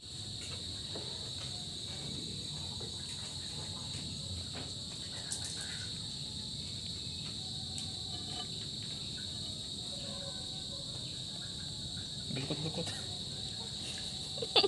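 Steady, high-pitched chorus of crickets, with faint clicks from food being handled and a sharp knock near the end.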